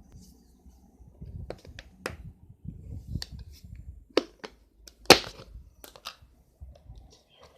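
Fingers poking and squishing slime, making an irregular series of sharp pops and clicks over soft squelching, the loudest pop about five seconds in.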